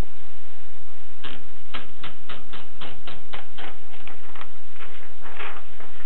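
Keys being typed on a Rheinmetall portable typewriter, the typebars striking the platen in a run of about a dozen sharp clacks, roughly four a second, starting about a second in. A longer, rougher sound follows near the end.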